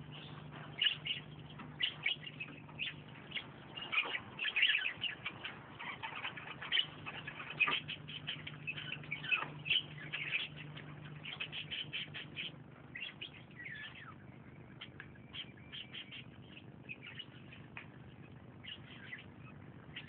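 Birds chirping and twittering: many short high calls, some sliding downward, busiest in the first half and thinning out towards the end, over a faint steady low hum.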